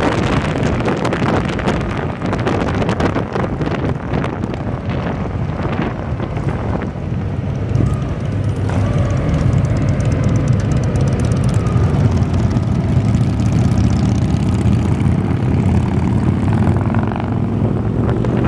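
Cruiser motorcycle engine running steadily at road speed, heard from the rider's own bike, with wind rushing over the microphone.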